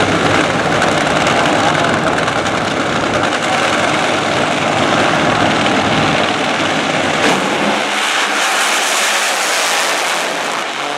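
Two nitro-burning Funny Car drag-racing engines running on the starting line, a loud, dense, ragged roar. About seven seconds in there is a sharp crack, and after it the deep low end falls away and the sound turns higher and thinner.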